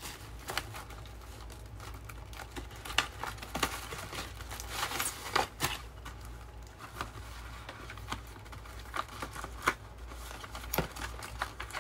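Cardboard product box being opened by hand and its packaging handled: irregular rustling, scraping and light clicks of paperboard flaps and inserts.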